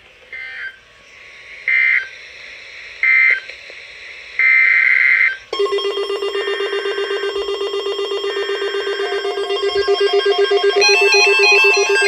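NOAA Weather Radio's SAME digital data squawks: three short bursts about a second and a half apart (the end-of-message code), then a longer burst. About five and a half seconds in, a weather radio's loud electronic alert buzz starts, pulsing steadily, and near the end it gains a warbling, ringtone-like pitch pattern as the next alert comes in.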